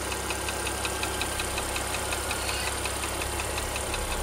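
Porsche Panamera's 3.0-litre turbocharged petrol engine idling, with a rapid, even metallic ticking (딱딱딱) over the engine note. The tick comes on once the engine is hot and quickens with engine revs; the cause of this engine noise has not yet been found.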